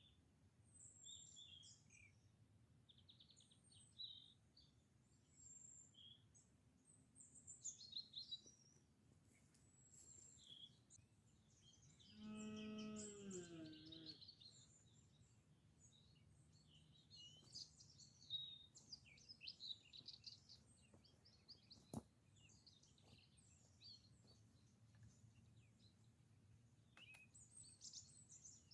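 Faint forest birdsong: several small birds chirping and trilling on and off. About twelve seconds in, a low drawn-out pitched sound lasts about two seconds and bends downward at its end. Near the end there is a single sharp click.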